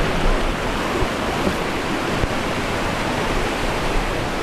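Steady rush of Dunn's River Falls, water cascading over rock.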